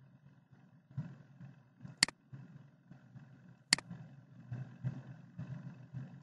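Two sharp computer mouse clicks about a second and a half apart, over a faint low background rumble.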